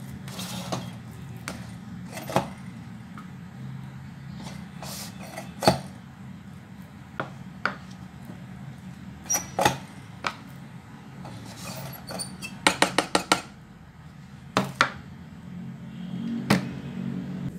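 Plastic rice paddle scraping and tapping against a rice cooker's inner pot as cooked rice is stirred: scattered sharp knocks, with a quick run of about six taps a little past the middle. A low steady hum runs underneath.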